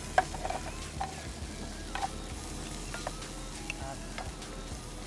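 Spatula stirring and scraping sliced sausage and bacon in a hot frying pan, knocking against the pan about once a second, over a light sizzle.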